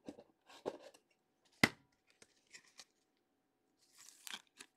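A trading card in a clear plastic sleeve and rigid top loader being handled: short plastic rustles and scrapes, with one sharp click about a second and a half in.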